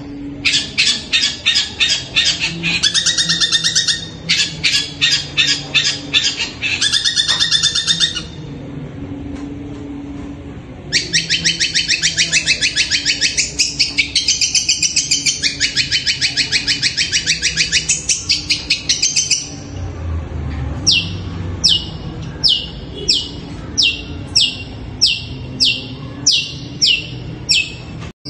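Long-tailed shrike (cendet) singing: bursts of fast, harsh chattering trills, a long unbroken trill in the middle, then a string of about a dozen sharp notes, each sliding down in pitch. The title likens the song to the cry of a kuntilanak ghost.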